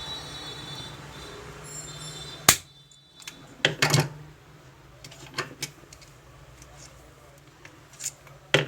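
Sharp metallic clicks and knocks of tools and parts being handled while a sewing machine is taken apart. There is one loud knock about two and a half seconds in, a cluster of knocks a second later, then scattered lighter ticks and a double knock near the end, over a low steady hum.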